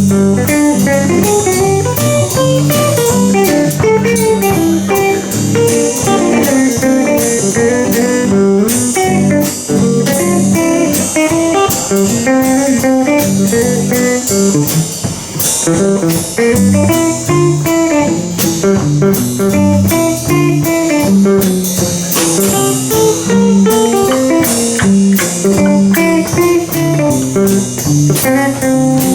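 Blues band playing an instrumental break in a fast song in G: a guitar lead over a second guitar and a drum kit, with no singing.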